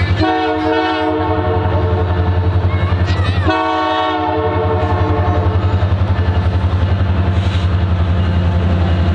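Locomotive air horn blown twice, a blast of about a second and then a longer one that slides up into pitch at its start, over a steady, pulsing low rumble.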